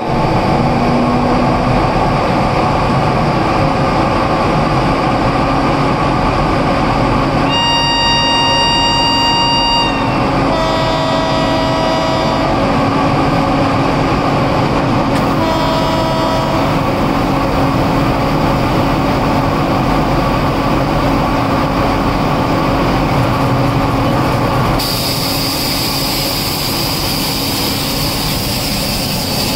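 WAG9 electric locomotive running with a loud, steady mechanical noise and low hum, while a train horn sounds three times a few seconds apart. About three-quarters of the way through, the noise changes to a higher, steady hiss.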